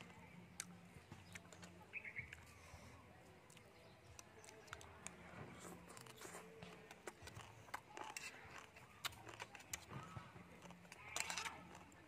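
Quiet eating sounds: chewing and mouth noises with scattered sharp clicks of a metal fork and spoon against a metal tray, and a louder burst of eating noise about eleven seconds in.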